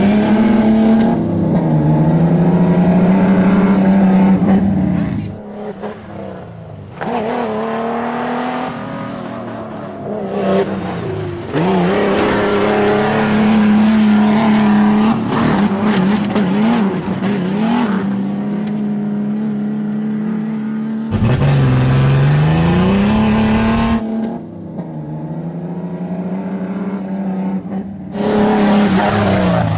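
Two modified off-road trucks, a 1991 Ford Explorer and a 1991 Jeep Cherokee XJ, racing flat out down a dirt drag strip. Their engines run at high revs, dropping in pitch and climbing back up again several times as they shift through the gears, with sudden jumps in loudness.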